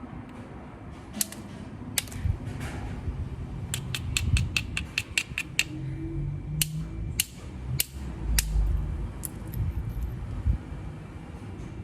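Obsidian being knapped: sharp, glassy clicks of stone on stone as flakes come off, single strikes with a quick run of about eight in the middle, over a low rumble of the piece being handled.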